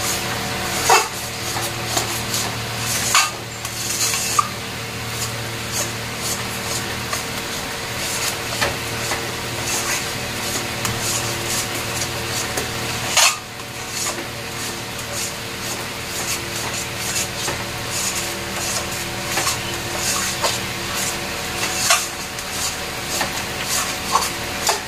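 Metal spatula scraping and stirring a thick chana dal paste around an aluminium kadai: a continuous run of rasping scrapes and light clicks against the pan, with one sharper knock about halfway through. The paste is being cooked down into a stiff dough.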